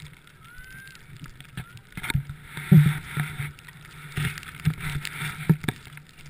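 Thuds and rustling from a walker's boots and clothing carried into a body-worn camera while walking through snow, with several sharper knocks about two to six seconds in.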